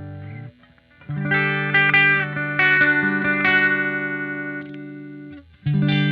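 Electric guitar on its bridge humbucker, played clean through the NUX MG-30's Fender Deluxe Reverb amp model and cabinet IR. A ringing chord is cut short about half a second in. After a brief gap, strummed chords with single picked notes ring out, are muted again, and a fresh chord is struck near the end.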